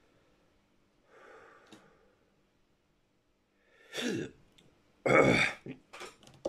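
A man's voice: a soft sigh, then two loud, harsh breaths about a second apart, the second the louder. They are his reaction to the burn of a freshly eaten Trinidad Moruga Scorpion chilli pepper.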